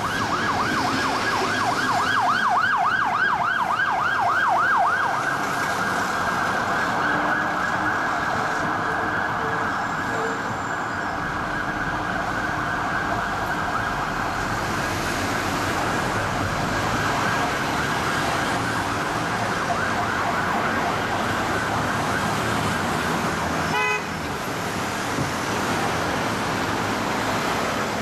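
British police car's electronic siren on an emergency run, at first in a fast yelp of about five rising-and-falling sweeps a second, then going on in a slower wail over the noise of city traffic. A brief sharp sound cuts in near the end.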